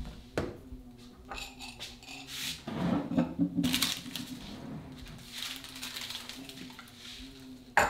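Kitchen handling sounds: light knocks as a phone is laid on a stone worktop, then cups and dishes clattering for about a second and a half near the middle, over a faint steady hum. A sharp knock near the end.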